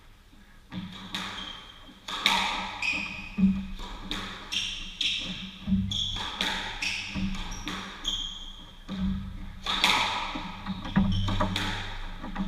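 Squash rally beginning with the serve about a second in: the ball cracking off the rackets and smacking the court walls in an irregular series of sharp hits, with brief squeaks of shoes on the wooden floor between them.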